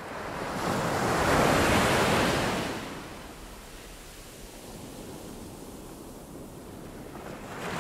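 A rushing hiss like surf washing in: it swells to a peak about two seconds in, falls away to a steady lower wash, and swells again at the very end.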